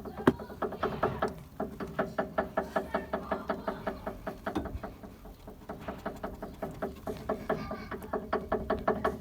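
Renault anti-roll bar (stabilizer) links knocking in a fast, even rattle of about five short ringing knocks a second, with one louder knock near the start. Knocking stabilizer links are a typical sign of worn ball joints in the links.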